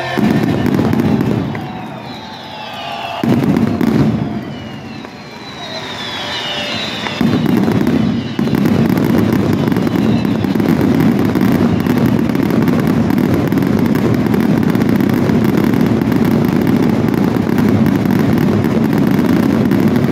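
Fireworks finale barrage: a dense run of reports and crackle, with falling whistles about 2 s and 6 s in. From about 7 s in, the reports run together without a break.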